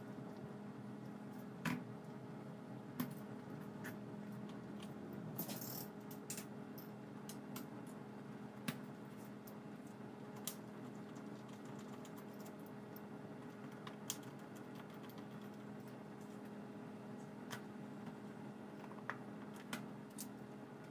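Sharp small clicks and taps, about a dozen at irregular intervals, over a steady low hum, from small tools and camera parts being handled on a workbench. A short rustle comes about five and a half seconds in.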